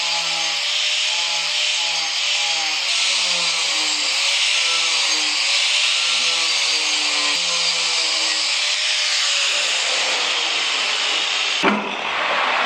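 Power tool grinding into wood with a steady, loud hiss, over background music with a stepped melody. There is a short knock near the end.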